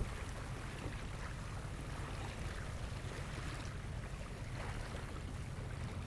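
Water rushing and splashing steadily along the hull of a small wooden sailboat moving under sail, with a low wind rumble on the microphone.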